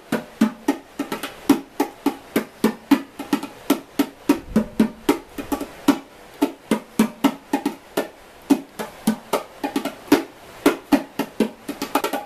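A pair of bongos played with bare hands: a steady, even run of strokes on both drums at about four to five a second.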